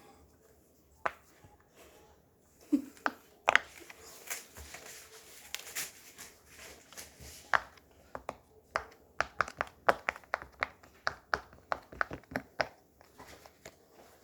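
Small objects handled by hand: sharp clicks and taps, with a stretch of crinkling in the middle and a quick run of clicks, about three a second, in the second half.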